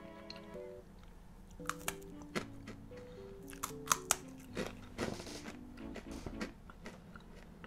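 A crunchy snack being bitten and chewed close to a microphone: a series of sharp crunches starting about two seconds in, the loudest in the middle, over background music with held notes.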